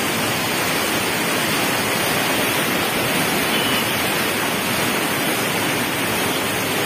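Canal water pouring through the open gates of a masonry sluice and churning into white water below: a steady, unbroken rushing.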